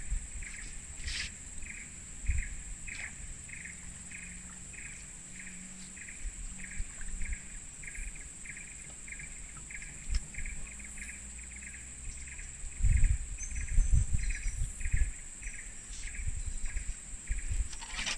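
Tropical forest ambience: a steady high-pitched drone and a regular chirp repeating about three times a second, with low rumbling bursts about thirteen seconds in.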